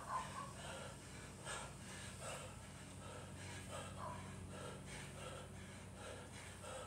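A man breathing hard and fast from exertion during goblet squats with a heavy dumbbell, late in a long workout: short forceful breaths repeating under a second apart, the loudest right at the start as he lifts the weight.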